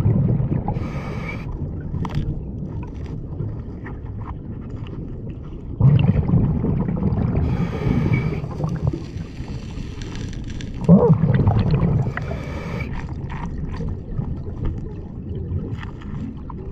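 Scuba diver breathing through a regulator underwater: three surges of exhaled bubbles gurgling and hissing, about five seconds apart, with a low rumble of water between them.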